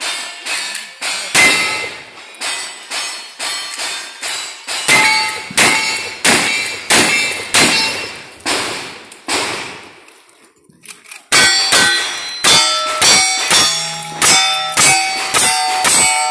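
A quick string of gunshots, about two a second, each followed by the ring of a steel target being hit. About ten seconds in there is a short pause, then a second fast string in which the steel rings longer.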